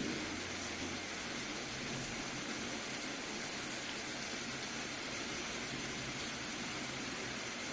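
Soft rain falling steadily, an even hiss with no separate drops standing out.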